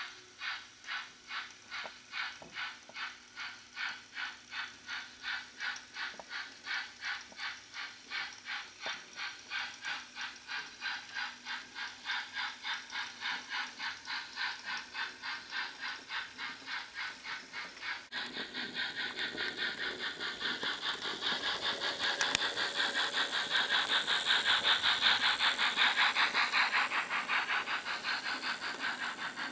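Steam-locomotive chuffing from an H0 model of a G 4/5 locomotive pulling away, a steady beat of about two to three chuffs a second that slowly picks up pace. About 18 seconds in the sound changes abruptly to louder, faster chuffing with more hiss, which swells and then eases near the end.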